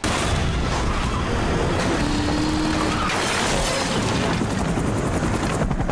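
Car-chase soundtrack from a film: cars racing with loud, dense engine and tyre noise, and a brief squeal-like tone about two seconds in.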